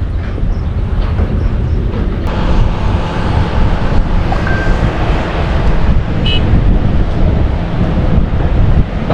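Kawasaki Ninja ZX-6R inline-four with an Akrapovic exhaust running on the move, under heavy wind noise on the microphone. The sound grows fuller from about two seconds in.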